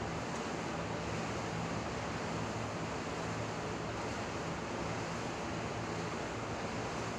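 Steady outdoor background noise: an even rushing hiss, like wind or distant traffic, with a low steady hum underneath and no distinct events.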